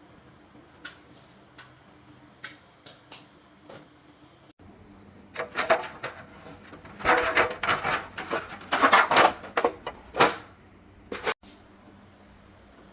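Aluminium door parts being handled: scattered light clicks, then from about five seconds in a few seconds of loud, dense metal clattering and knocking that stops again near the end.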